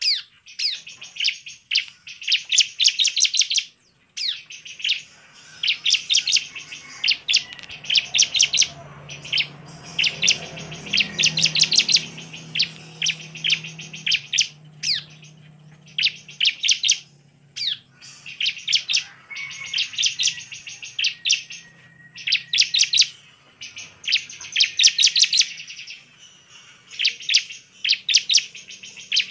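Bar-winged prinia (ciblek) in full, vigorous song: loud, rapid trills of sharp, high chirps delivered in runs of a second or two, repeated again and again with short pauses between.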